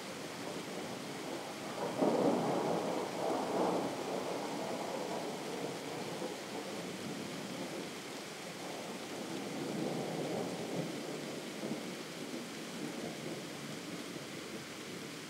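Distant thunder rumbling: a rolling peal builds about two seconds in and is loudest for a couple of seconds, then a second, weaker roll swells near the middle before fading back to a steady hiss.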